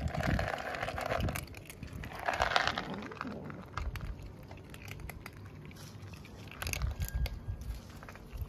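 Several kittens crunching dry cat kibble, a steady run of small crisp crunches and clicks. Two louder noisy bursts stand out in the first three seconds.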